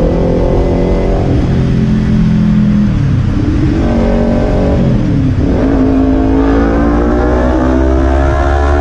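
Kawasaki Ninja 300 parallel-twin engine and slip-on exhaust under acceleration while riding. The note climbs, drops sharply at gear changes about three and five seconds in, then rises steadily again.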